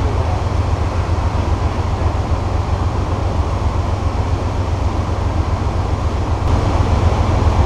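A vehicle running steadily in motion: a constant low rumble under an even noise, growing slightly louder near the end.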